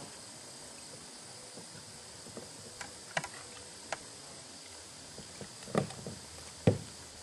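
Handling sounds in a plastic kayak as fishing line is hauled in by hand over the side: scattered small knocks and light water sounds, with two louder, dull thumps near the end.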